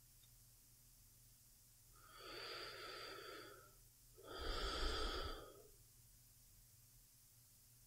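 A woman's slow, sleepy breathing close to the microphone: one breath in and out starting about two seconds in, the second half louder.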